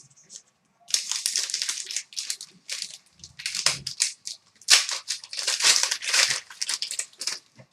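Foil trading-card pack wrapper being torn and crinkled, with cards being handled: a run of irregular crackling rustles, most of them high-pitched.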